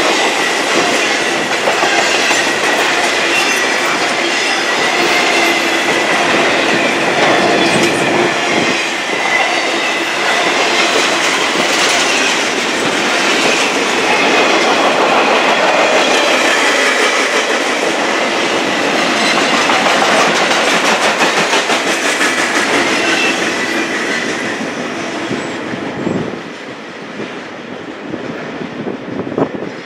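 Intermodal freight cars of a passing train rolling by, steel wheels running over the rails with a dense, steady noise and many small knocks. The sound falls away about 26 seconds in as the end of the train goes by.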